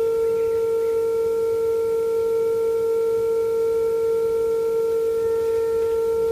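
Steady mid-pitched test tone with faint overtones from the loudspeaker of a 1957 Ekco U245 valve radio. It is the signal generator's modulated 470 kHz signal, passed through the set's IF stages and detected, which the restorer uses as he aligns the IF transformers.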